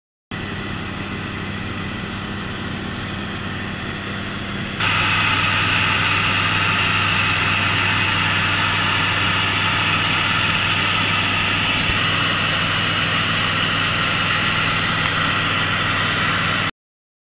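Engine and propeller of a single-engine light aircraft droning steadily in flight. It gets louder and brighter about five seconds in and cuts off abruptly near the end.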